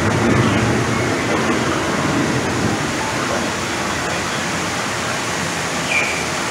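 Steady rushing of falling water: the simulated rain and water effects of a dark ride's storm scene.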